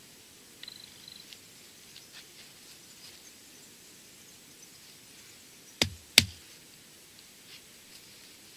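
Knife point jabbing at a mobile phone battery wedged between stones, giving faint scratches and ticks and then two sharp clicks about half a second apart a little after the middle. The battery is being pierced but is not yet reacting: no hiss or burning.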